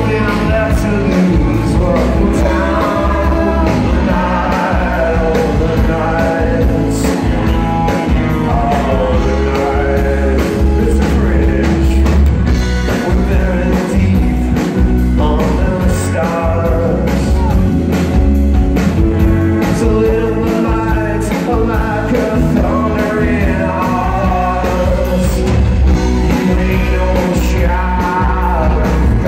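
Live rock and roll band playing loud: a singer over electric guitars, bass guitar and drums.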